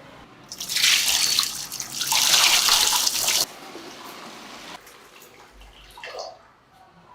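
A spray jet hissing in two long bursts of a second or more each, the first starting about half a second in; afterwards only a few faint small sounds.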